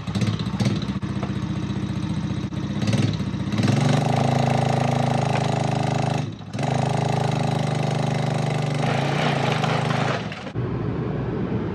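Small single-cylinder engine of an X-Pro 125 ATV running, with the revs climbing about three and a half seconds in. There is a short break around six seconds before it holds steady again, and it eases off near the end.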